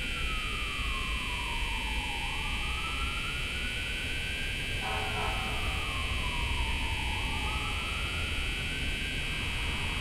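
An emergency vehicle siren wailing slowly, sliding down and back up about every four to five seconds, over the steady high drone of a cicada chorus in the trees. A low rumble runs underneath.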